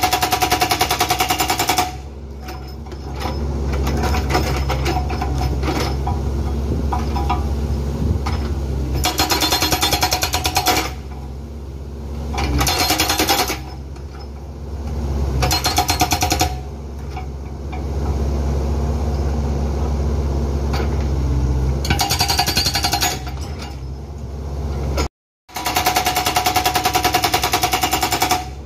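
Hydraulic breaker on a Bobcat E45 mini excavator hammering rocks in repeated bursts of rapid blows, each lasting one to three seconds. Between the bursts the excavator's diesel engine runs steadily.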